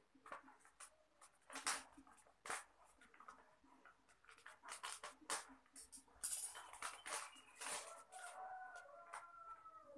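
Plastic shrink-wrap crinkling and scissors snipping as the wrap is cut and pulled off a small cardboard box, in a string of short sharp crackles. Near the end a chicken calls once in the background, one long call falling slightly in pitch.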